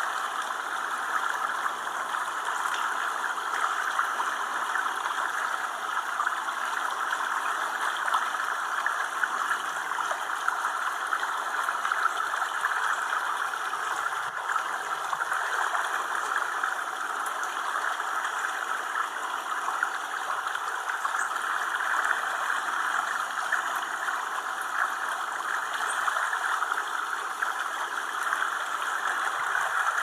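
Steady, even rushing noise, like running water, with no clear bird calls.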